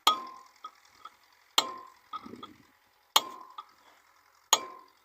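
A hammer striking steel on a loader's wheel hub: four hard blows about a second and a half apart, each ringing briefly, with light metal clinks between them.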